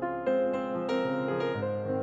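Background piano music: single notes played one after another, with a low bass note coming in about one and a half seconds in.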